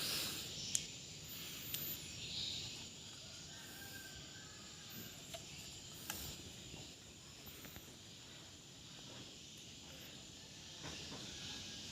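Faint background hiss with a few soft clicks and some faint, short, high-pitched chirps.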